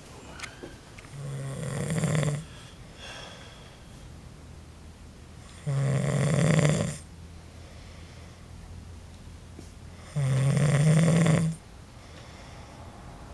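A sleeping man snoring. There are three snores about four and a half seconds apart, each a rasping buzz of a little over a second whose pitch steps up partway through.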